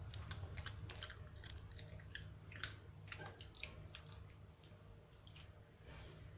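Pekingese dog eating his regular dog food: faint, irregular chewing with small clicks, over a steady low hum.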